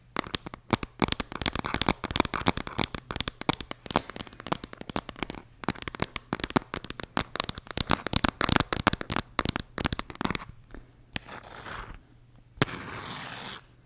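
Packaging crinkling and crackling as it is handled, a dense run of irregular crackles lasting about ten seconds. Near the end a single sharp click, then a steady hiss of about a second.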